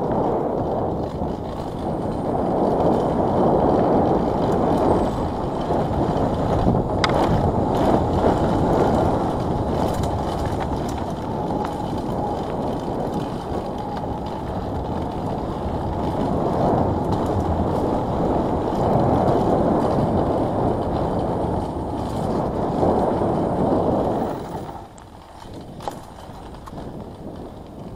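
Mountain bike riding fast down a dirt trail: a steady rumble of tyres on dirt and wind rushing over an action camera's microphone, with a few sharp knocks. It quietens about four seconds before the end as the bike slows.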